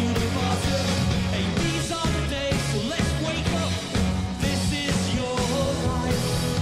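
Live rock band performing a song: electric guitar and drums with singing, at a steady level.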